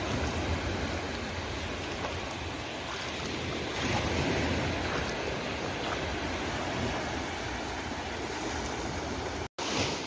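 Small waves washing up and sliding back over black volcanic sand, a steady rush of surf that swells slightly about four seconds in. The sound cuts out for an instant near the end.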